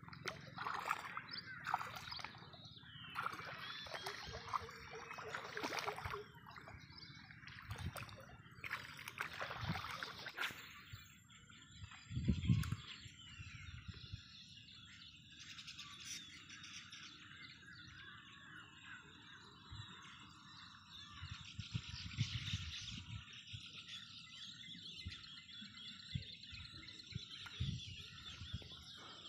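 Birds chirping and calling on and on around a reedy lakeshore. For roughly the first ten seconds they are mixed with splashing and rustling as someone wades through shallow water and reeds.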